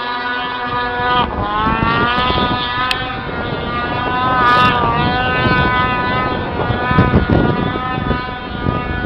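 Snowmobile engine running hard at high revs while climbing a steep snow slope, its pitch rising about a second in and then holding steady.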